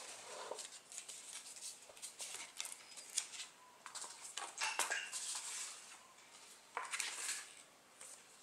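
Paper and card handling: a folded leaflet and cards rustling and crinkling as they are pulled from a canvas pouch and unfolded, in a run of short, sharp crackles with louder bursts near the middle and again about seven seconds in.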